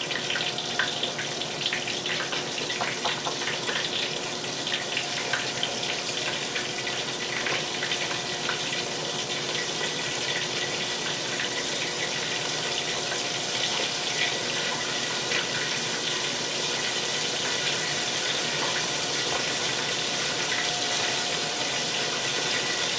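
Cornstarch-coated chicken wings deep-frying in hot oil: a steady sizzle with scattered crackles and pops, busier in the first half.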